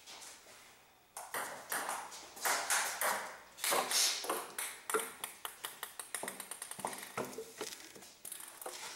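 Table tennis ball struck back and forth in a rally, a series of sharp clicks off the paddles and the table. Near the end the clicks come quicker and fainter.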